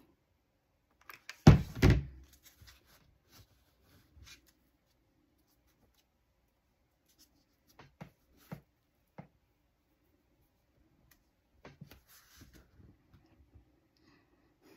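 Handling sounds from crafting at a table: two loud knocks about one and a half and two seconds in, then a few faint scattered taps and clicks.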